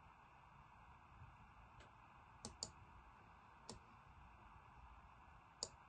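Computer mouse button clicks while the map is dragged: a faint click, a quick double click about two and a half seconds in, then two single clicks, over quiet room noise.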